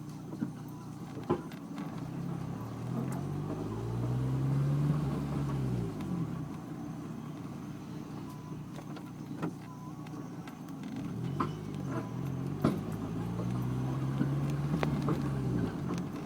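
Honda S2000's four-cylinder engine revved twice in neutral, pitch rising and falling each time, with scattered sharp clicks. The car is being checked for a weird noise from the rear passenger side.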